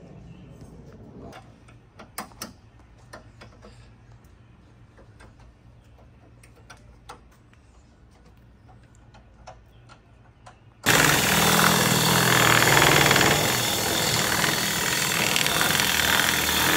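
Faint scattered clicks at first, then about eleven seconds in a cordless drill starts suddenly and runs loud and steady, its bit working into the plastic fender liner of a car.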